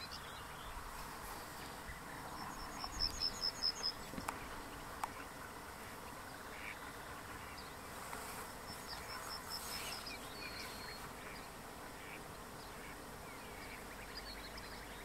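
Yellowhammer singing twice: each phrase is a quick run of repeated high, thin notes. The second phrase ends in a longer drawn-out note.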